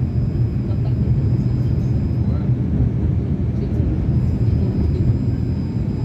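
Cabin ride noise of a 71-911EM Lvyonok tram running along the track: a steady low rumble with a faint, steady high tone above it.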